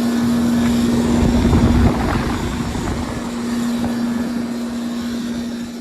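2007 four-ton Trane condensing unit running just after kicking on, with a steady, loud electrical buzz at one pitch over the rush of the fan. The technician suspects the buzz comes from the unit's electrical panel.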